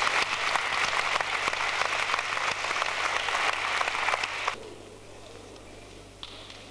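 Audience applauding, a dense patter of many hands clapping that stops abruptly about four and a half seconds in.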